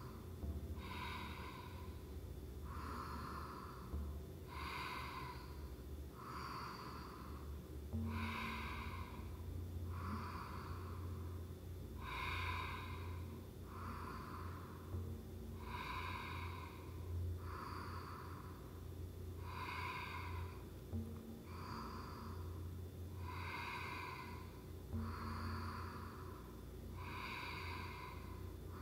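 A woman breathing audibly and rhythmically through the nose, with inhales and exhales alternating about once a second, paced to a yoga twisting movement.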